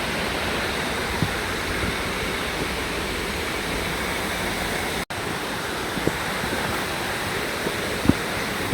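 Steady rushing of running water from a rainforest creek, with a few faint knocks. The sound cuts out for an instant about halfway through.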